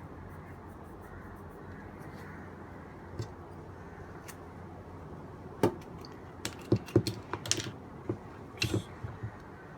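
A quick, irregular run of light clicks and taps, as small hard parts or tools are handled, starting a little past halfway, over a steady low background noise.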